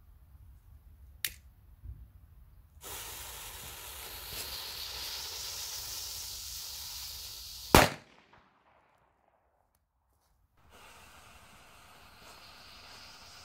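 A firecracker's fuse burns with a hiss for about five seconds, then the firecracker goes off with one sharp, very loud bang. A short click comes about a second in, and after a brief silence a fainter steady hiss begins near the end.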